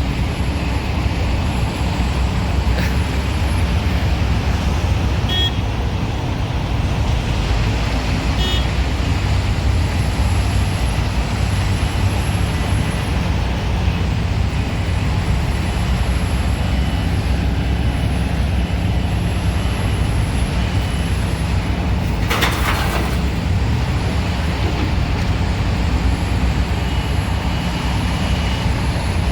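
Loader's diesel engine running steadily with a heavy low rumble. There is a short burst of hiss about three-quarters of the way through.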